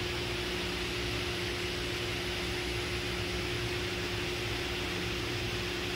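Steady machinery hum and hiss with one steady mid-pitched tone from the milling post lift's drive as it positions the mill head over the receiving drum.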